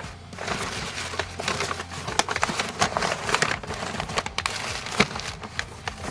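Packing material being handled and crumpled by hand: a busy run of crackling rustles with many sharp little clicks and taps.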